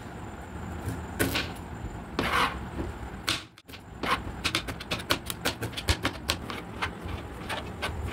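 Knife cutting vegetables on a plastic cutting board: a few scraping strokes, then from about halfway a quick run of sharp knife taps on the board, several a second.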